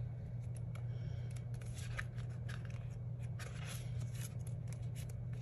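Paper sticker-book pages being turned and handled: scattered short rustles and light flicks of the sheets, over a steady low hum.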